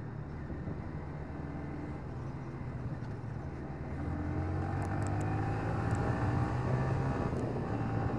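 Yamaha Vixion R 155 VVA's single-cylinder engine running while riding. It gets louder about four seconds in and rises slightly in pitch as the bike accelerates.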